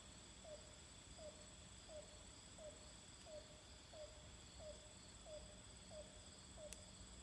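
Faint repeated call of an unidentified animal: short, low, somewhat owlish notes, each dipping quickly in pitch, about three every two seconds at an even pace. The recordist's best guess, never confirmed, is a pileated woodpecker.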